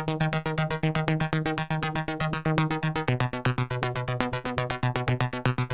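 Electronic background music: a synthesizer playing fast repeated notes, about ten a second, with the bass note stepping lower about three seconds in.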